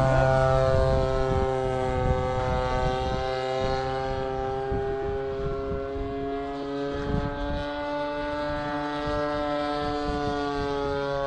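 Radio-controlled model airplane's motor and propeller droning steadily in flight, pitch dipping slightly near the start and then holding level.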